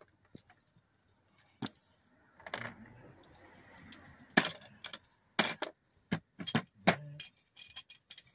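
Metal hand tools and sockets clinking and clattering as they are picked up and put back into a socket-set case: scattered sharp clinks that come more often in the second half, with a rustling shuffle around the third second.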